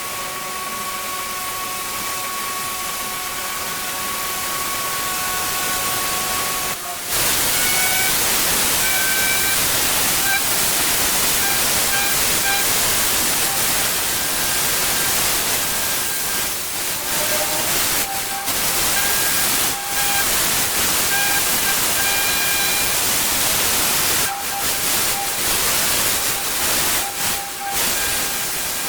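Pressure washer spraying water: a loud, steady hiss over a thin machine whine. The spray gets louder about seven seconds in and breaks off briefly a few times in the second half.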